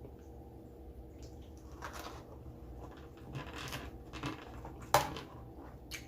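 Close-up eating and food-handling noises: several short rustles and scrapes, and one sharp click about five seconds in.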